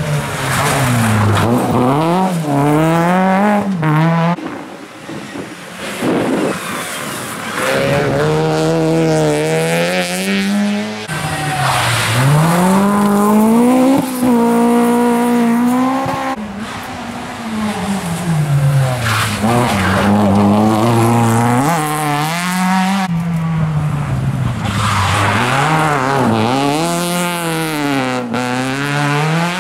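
A run of rally cars, a classic Ford Escort among them, accelerating hard one after another through a tight corner. Their engines rev high and drop back repeatedly through the gear changes, and the sound cuts abruptly from one car to the next several times.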